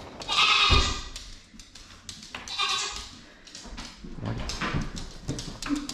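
A Nigerian Dwarf goat kid bleating loudly twice: one call right at the start, another about two and a half seconds in.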